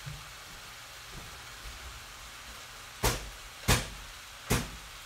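A cardboard can of refrigerated crescent-roll dough struck hard against a chair three times, sharp knocks under a second apart in the second half, to force open a can whose seam will not pop.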